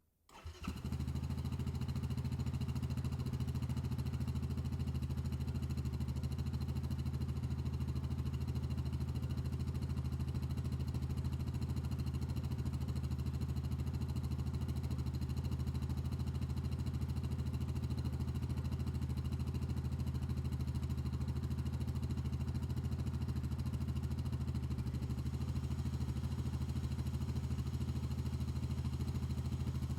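Four-stroke utility ATV (quad) engine running steadily at a constant, low pitch, coming up within the first second and then holding without revving.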